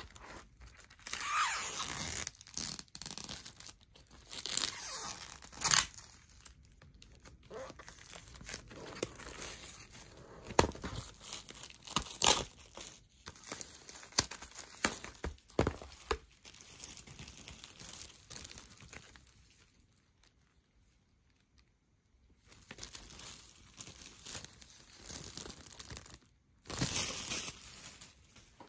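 Plastic shrink wrap being torn and peeled off a vinyl LP sleeve by hand. It crinkles in irregular bursts with a few sharp snaps, and goes almost quiet for a couple of seconds about two-thirds of the way through.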